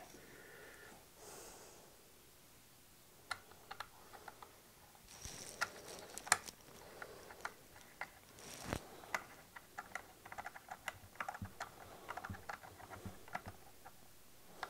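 Faint, irregular small clicks and taps of a Ryobi P320 brad nailer's contact-tip safety assembly being handled and worked by hand, a few a second, starting about three seconds in.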